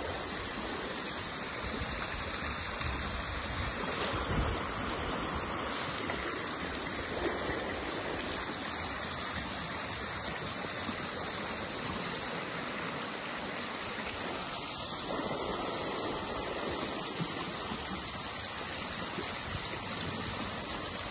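Fast-flowing river water below a dam, rushing steadily.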